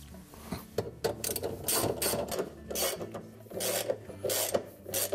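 Socket ratchet clicking in a run of quick back-and-forth strokes, a few a second, as the bolts holding a washer's inner basket to its hub are driven in.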